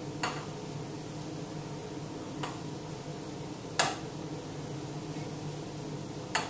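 A metal spoon clicking against a small glass jar and bowl four times while spreading a soft topping, the loudest click about four seconds in, over a steady low hum.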